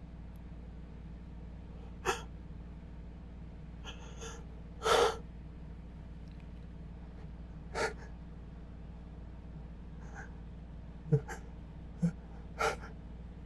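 A man's sharp, catching inhales as a sneeze builds: a string of short gasps and sniffs with pauses between them, the longest about five seconds in and several quick ones in the last few seconds.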